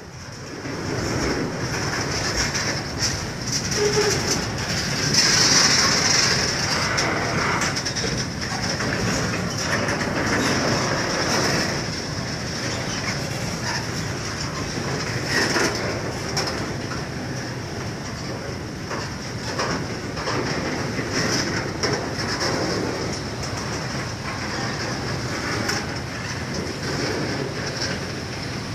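Freight train's container flat wagons rolling past close by, wheels clattering on the rails, with a steady high-pitched wheel squeal; loudest a few seconds in.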